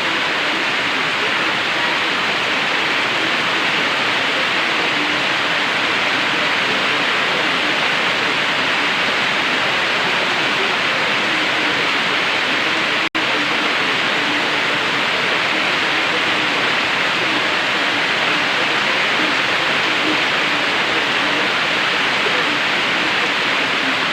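Heavy rain pouring down steadily in a tropical storm, a dense hiss with no let-up, broken only by a momentary gap about halfway through.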